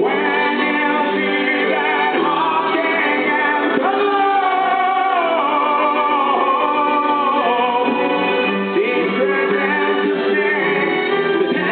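Live rock concert music: a male singer holding long, wavering notes over band and keyboard accompaniment.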